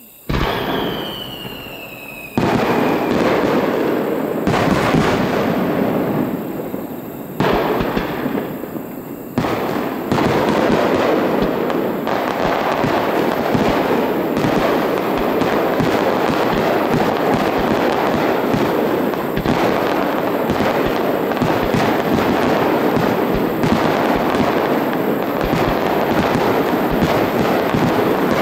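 Starmine fireworks barrage, shells launching and bursting in rapid succession. It opens with a sudden bang and a falling whistle, then builds in steps into a continuous run of overlapping bangs from about ten seconds in.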